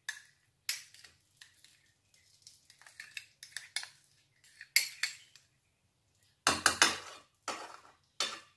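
Metal spoon scraping and tapping against a glass bowl and a metal kadhai as solid ghee is scooped out and pushed off into the pan: a run of short scrapes and clinks, busiest and loudest about two-thirds of the way through.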